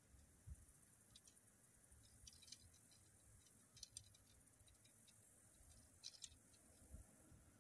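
Near silence: a faint low rumble of distant highway traffic, with a few soft scattered ticks.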